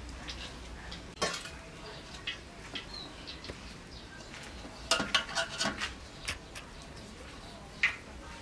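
Light clinks and knocks of a metal bowl and enamel plate as rice-flour dough is kneaded and shaped by hand: one clink about a second in, a quick run of several about five seconds in, and one more near the end.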